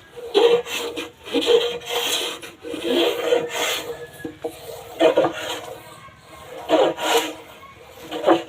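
A hand tool scraping or rasping across wood in repeated, uneven strokes, with a short lull about halfway through.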